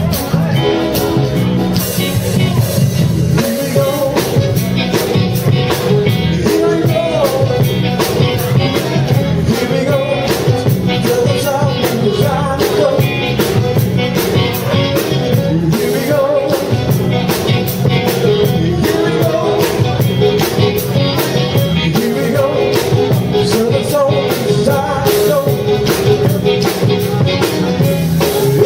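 Live band playing an upbeat dance groove, keyboards and guitar over a steady beat.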